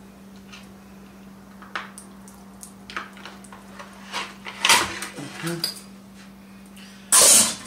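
Metal utensils clicking, knocking and scraping against a wooden cutting board and a roast turkey while it is carved: scattered sharp clicks that grow busier midway, with a brief loud rustling burst near the end.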